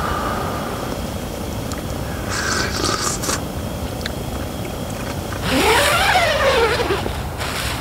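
Portable gas camping stove burner hissing steadily under a pan of simmering stew, with a few brief crackles. About five and a half seconds in, a louder noisy stretch comes in, with a tone that rises and then falls.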